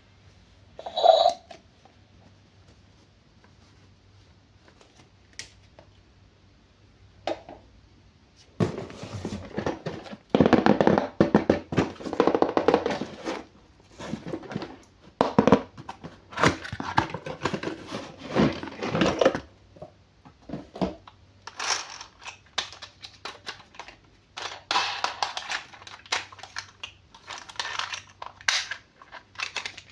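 A single knock about a second in, then quiet. From about a third of the way in come irregular rustling, crinkling and knocking as toy packaging and plastic toys are handled and unwrapped.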